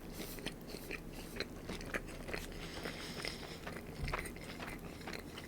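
A person chewing a mouthful of crispy chicken ranch wrap close to the microphone: irregular crunches and small wet mouth clicks.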